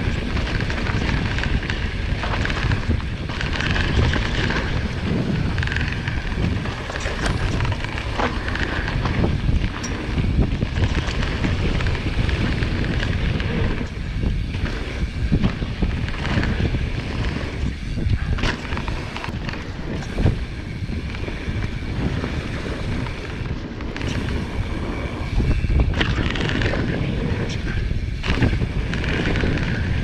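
Wind buffeting the microphone over the rolling noise of a Marin Alpine Trail XR mountain bike riding down a rough trail, with scattered knocks and rattles from the bike over bumps.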